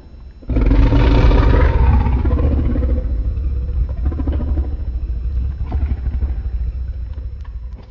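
Monster-film sound effect: a loud, deep rumble that comes in suddenly about half a second in, strongest at first, then slowly dies away.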